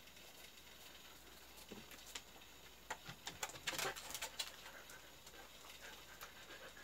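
A short run of crisp, crackly crunches, about three seconds in and lasting around a second and a half: a bite into a ripe Korean melon (chamoe) and chewing.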